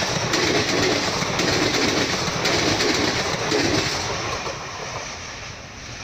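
Express train's passenger coaches rushing past at speed, the wheels clattering over the rail joints in a rhythm of about once a second. About four seconds in the noise fades as the last coach passes and the train draws away.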